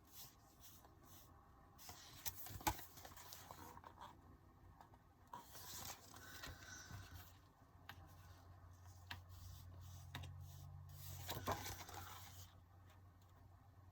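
Faint rustling and scraping of paper and card album contents being handled, with a few light taps, the sharpest about two and a half seconds in.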